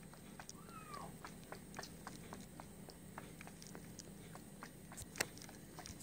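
Kitten suckling at a feeding bottle's nipple: a run of small irregular sucking clicks, with one short mew about half a second in and a single sharper click a little after five seconds.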